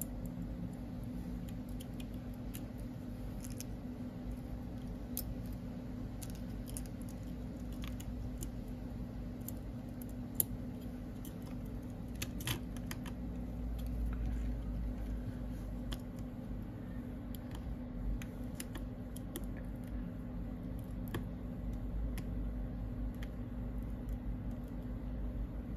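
Small clicks and light taps of metal tweezers and fingertips working an iPhone XR logic board into its housing, over a steady low hum. One sharper click comes about ten seconds in.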